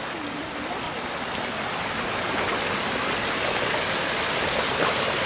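Water of a small mountain brook running over stones, a steady rushing noise that grows a little louder through the clip.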